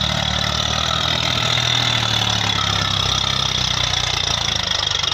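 Diesel tractor engine running steadily at an even pitch, hauling a trolley loaded with paddy through a soft paddy field.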